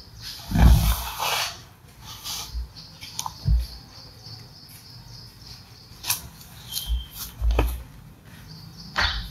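A sheet of paper being handled and slid across a wooden desk: a rustle with a dull knock about half a second in, then a few more soft knocks and sharp clicks scattered through.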